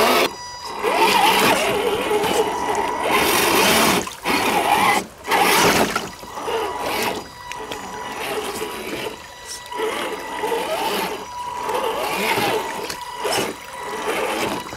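Axial SCX10 II RC crawler's electric motor and gears whining, rising and falling in pitch with the throttle, with water splashing and trickling around its tyres in a shallow rocky stream.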